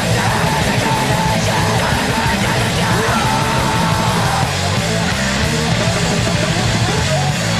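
Hardcore punk song played by a full band: distorted electric guitars, bass and drums at a steady loud level, with shouted vocals.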